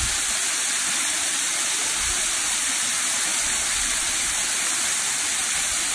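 Waterfall pouring down a rock ledge into a pool: a steady, even rush of falling water, with a few soft low bumps near the start and about two seconds in.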